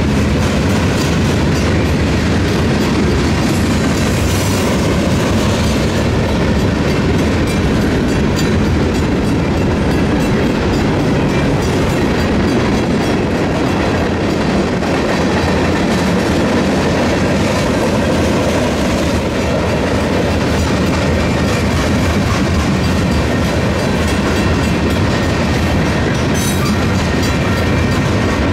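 Union Pacific freight train's boxcars and tank cars rolling past close by: a loud, steady rumble and clatter of steel wheels on the rails.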